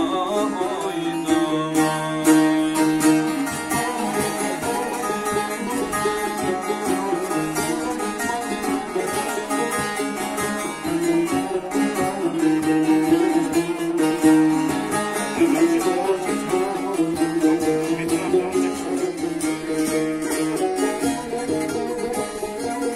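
Bağlama (saz) playing an instrumental passage of a Turkish folk song: rapidly picked melody notes over a steady low drone.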